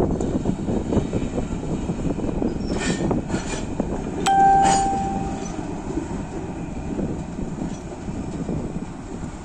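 Rock dumped from an electric rope shovel's dipper into a haul truck's steel bed, a dense clatter of falling, tumbling rock. About four seconds in, a single sharp metallic clang rings on for about a second.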